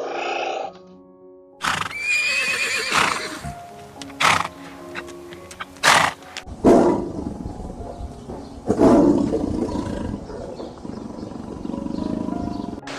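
Horse neighing several times over background music: a long whinny about two seconds in, then short sharp sounds and two more loud, rough calls later on.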